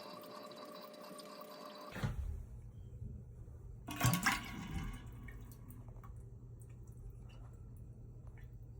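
Water running in a toilet, a steady hiss that cuts off abruptly about two seconds in, followed around four seconds in by a brief loud clatter, then a low steady hum.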